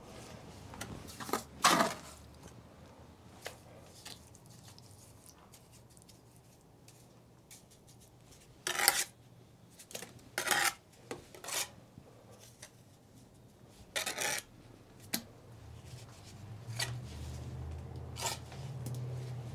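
Mason's steel trowel scraping and scooping mortar, in a handful of short separate scrapes with quiet between them.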